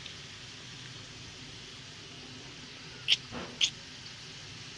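Two short high-pitched squeals from a toddler, about half a second apart, around three seconds in, over a steady background hiss.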